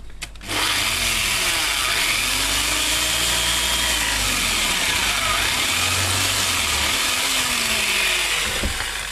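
Bench drill press running and its bit cutting a screw hole through an aluminium plate. The motor starts about half a second in, runs steadily with the pitch of the cut rising and falling as the bit is fed in, and dies down near the end.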